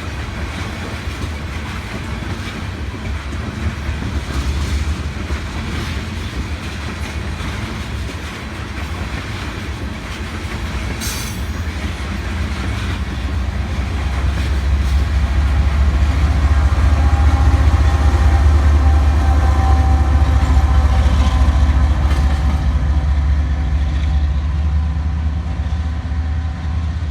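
A loaded oil train of tank cars rolling past on the rails, a steady low rumble with wheel clatter that grows louder about halfway through. There is a sharp click about eleven seconds in, and a thin steady tone rides on the rumble for a few seconds later on.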